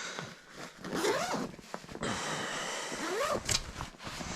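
Zipper on a packaged bedding bag being pulled open, a steady rasp for about a second and a half starting halfway through, with rustling of the bag around it.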